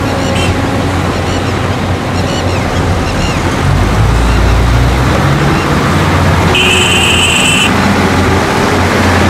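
Heavy diesel engines of excavators and ten-wheel dump trucks running steadily. A deep engine rumble swells about four seconds in as a loaded truck pulls away. A high steady beep sounds for about a second near the end.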